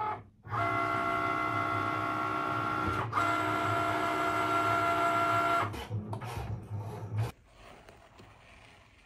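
Cricut cutting machine's motors moving the cutting mat loaded with felt, a steady mechanical whine with a brief break about three seconds in. The whine stops just before six seconds, and softer irregular handling noises follow for about a second.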